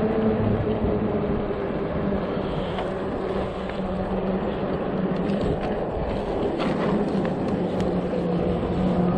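Electric bike riding along: wind rushing over the microphone with a steady low hum underneath, and a few light clicks and rattles around the middle.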